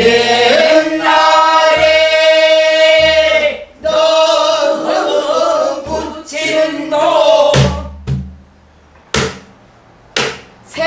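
A group of students singing a long, held pansori phrase together, accompanied by strokes on a buk barrel drum. After about seven seconds the singing stops and only a few spaced drum strokes are left.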